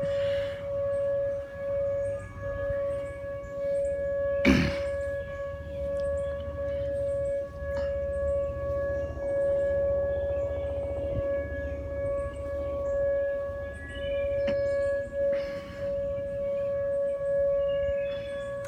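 Outdoor tornado warning siren holding one steady, unwavering tone during its test. A single thump sounds about four and a half seconds in.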